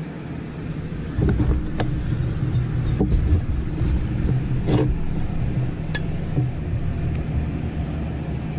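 A motor runs with a steady low hum and rumble, growing louder about a second in, with a few sharp clicks over it.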